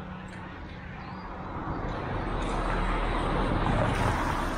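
A passing vehicle: a rushing hiss with a low rumble that swells over a few seconds, loudest near the end.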